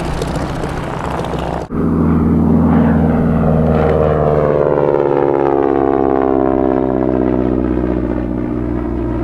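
Formation of North American AT-6 Texan trainers flying past, their nine-cylinder Pratt & Whitney R-1340 radial engines and propellers droning. After a cut about two seconds in, the drone slowly falls in pitch as the planes pass and draw away.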